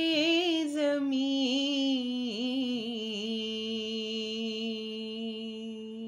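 A single voice sings one long, drawn-out note of an Urdu devotional song, with quick ornamented turns at first. The note then slides lower and is held steady, fading out near the end.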